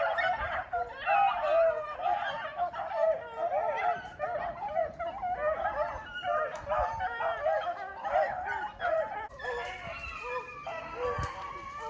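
A pack of beagles baying continuously as they run a rabbit, many overlapping calls one over another: the pack is on the rabbit's track.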